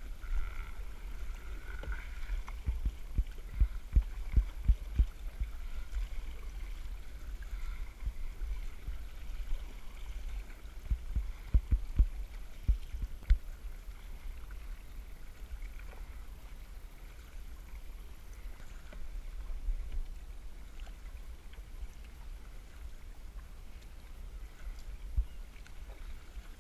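Paddling an Ocean Kayak Prowler Elite 4.5 sit-on-top kayak on calm sea: the paddle blades dip and water trickles and drips off them along the hull. Dull low thumps come in clusters a few seconds in and again near the middle, with one more near the end.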